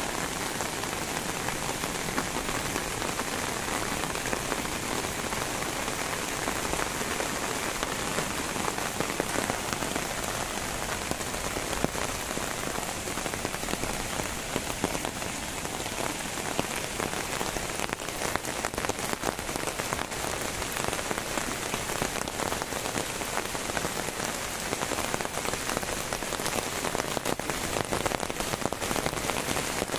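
Steady rain falling on foliage and wet ground, a dense even hiss of drops, with more separate drop ticks standing out from a little past halfway.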